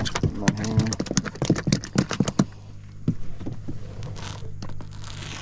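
Speckled trout flopping on a fiberglass boat deck: a quick run of wet slapping taps for about the first two and a half seconds, then quieter, over a low steady hum.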